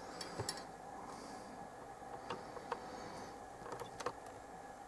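Scattered light clicks and taps of multimeter probe tips touching the components and circuit board of a transistor radio, about half a dozen over a few seconds. Behind them is a faint steady hum.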